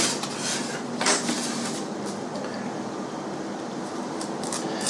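Snap-off hobby knife cutting through a Depron foam sheet: brief scratchy strokes, about a second in and again near the end, over a steady hiss.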